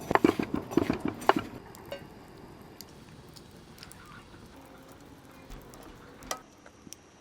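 Cooking and kitchen-handling sounds: a quick run of taps and knocks in the first second and a half, then a faint steady background with a single tap near the end.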